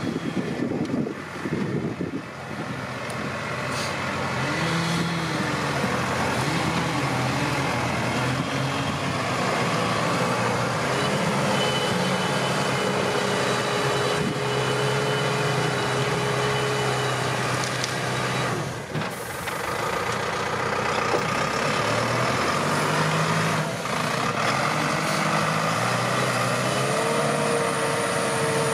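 Zetor tractor's diesel engine working hard under load, its revs rising and falling, as it tries to drag a log-laden trailer bogged in deep mud. A steady whine rides over the engine for a few seconds in the middle.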